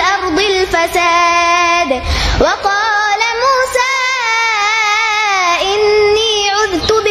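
A young girl's high voice reciting the Quran in a melodic tajweed style, close to the microphone, drawing out long held notes with ornamented turns in pitch. There is a brief break with a low puff of breath about two seconds in.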